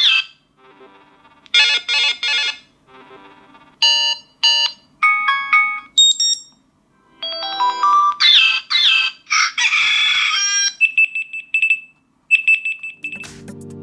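Caterpillar CAT S40 phone's built-in ringtones and alarm tones previewed one after another, each cut off after about a second: short note melodies, chirps and beeping tones. Near the end a denser electronic music track begins.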